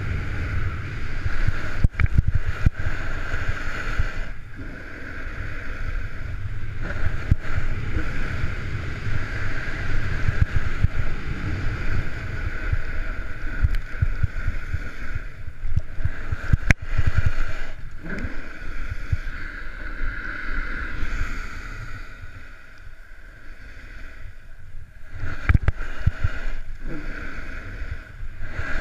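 Wind rushing over the microphone of a camera on a fast descent, with the steady rumble and scrape of a snowboard or skis running over groomed corduroy snow. Sharp knocks break in now and then, loudest about 2, 17 and 25 seconds in, and the rush eases for a few seconds near the end.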